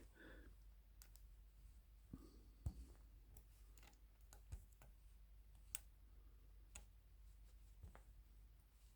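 Faint, scattered clicks and small taps from hand-adjusting a boring head, a handful of separate clicks a second or so apart over a near-silent background.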